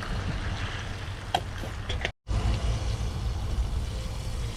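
Crappie fillets frying in hot grease, with distant freeway traffic and wind rumbling on the microphone. The sound cuts out completely for an instant a little past two seconds in.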